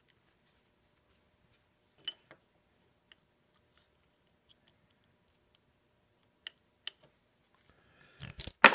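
Sparse light clicks of a depth micrometer being handled and set against a machined steel block, then a louder cluster of knocks near the end.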